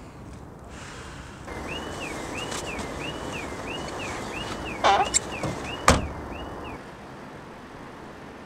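Car's warning chime beeping about twice a second while the door stands open, with a couple of knocks from the door and seat as someone climbs in; the sharpest knock comes about six seconds in, and the chime stops shortly after.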